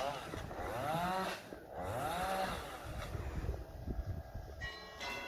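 Small petrol engine of a gardening power tool revving up and falling back again and again, about once a second. Near the end a steady ringing tone with several pitches comes in.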